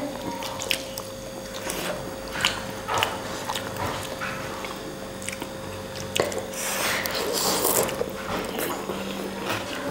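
Someone eating pork thukpa noodle soup close to the microphone: chewing, with scattered short wet mouth clicks and brief noisy smears.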